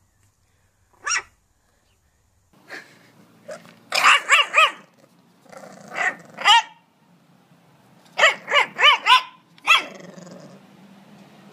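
A puppy barks once about a second in. Then a bulldog puppy barks repeatedly in high-pitched barks, in quick runs of two to four with short pauses between.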